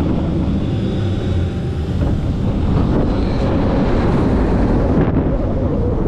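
Wind rushing over the microphone and the steel coaster train rumbling along its track at speed on a Mack Rides Stryker coaster, a steady, loud noise.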